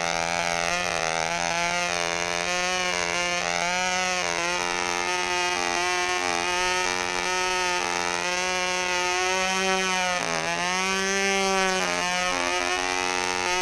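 Fox .35 two-stroke glow engine of a control-line model plane running steadily at full power in flight, a high buzzing whine whose pitch wavers up and down as the plane circles, with brief dips about ten seconds in and again near the end.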